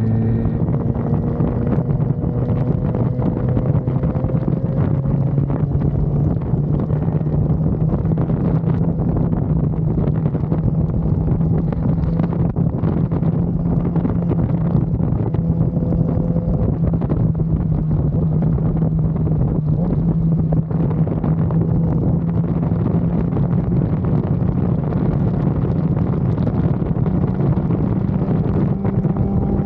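BMW S1000RR inline-four engine running at a steady cruising speed, its note holding nearly constant. Heavy wind noise buffets the camera's built-in microphone. The engine note begins to rise right at the end as the bike speeds up.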